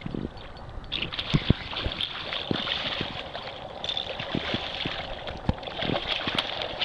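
Striped bass striking a topwater plug and splashing at the water's surface, over a steady wash of water noise with scattered low knocks.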